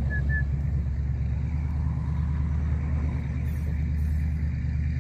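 Steady low rumble of an idling motor vehicle engine, with four short high chirps right at the start.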